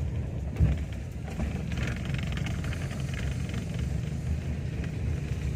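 Car engine running with tyre and road noise on a wet lane, heard from inside the cabin, and a single thump about half a second in.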